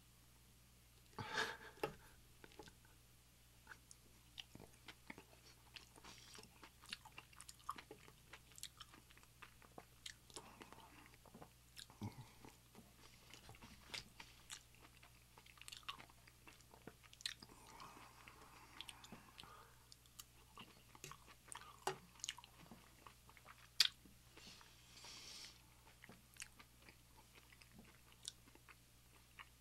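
Close-miked chewing: a man eating with his mouth, many small smacks and clicks scattered through, faint overall.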